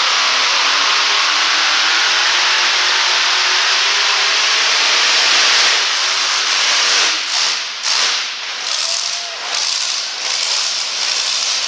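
Supercharged engine of a super modified two-wheel-drive pulling truck running at full throttle on a pull. About seven seconds in the throttle comes off, and the engine note drops and surges unevenly several times.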